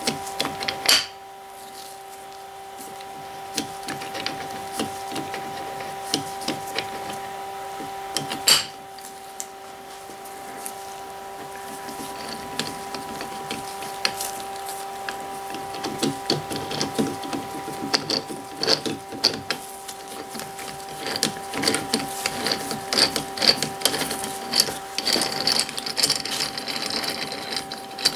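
Steel jaws of a three-jaw lathe chuck being reseated by hand: light metal clicks and scraping as the jaws are worked into the scroll, getting busier in the second half, so that all three close evenly. Two louder knocks come about a second in and after about eight seconds, and a steady hum runs underneath.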